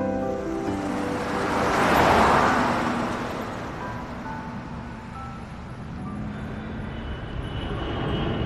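A vehicle passing by: a rushing noise swells to a peak about two seconds in, then slowly fades.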